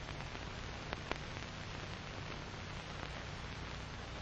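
Steady hiss and low hum of an old film soundtrack, with a couple of faint clicks about a second in.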